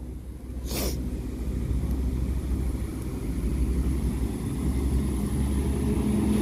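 Northern Ireland Railways Class 4000 diesel multiple unit pulling away, a steady rumble that builds slightly, with one short sharp sound about a second in.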